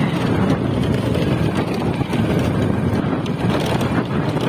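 Steady rumble of a vehicle in motion with wind buffeting the microphone.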